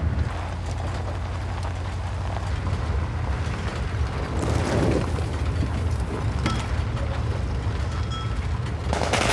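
Steady low engine drone of a military Humvee driving, heard from inside the vehicle, with a few faint knocks and rattles.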